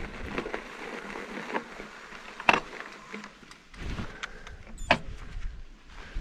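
Mountain bike and rider's gear handling noise as the bike comes to a stop: a few sharp clicks and scuffs over light wind on the microphone, one of them, about five seconds in, a short ringing metallic click.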